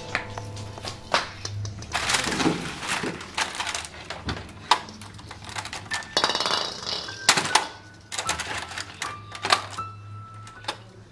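Irregular clicks and knocks of Christmas baubles being handled, taken out of a plastic box tray and hung on the branches of an artificial tree, with a few short ringing clinks in the second half.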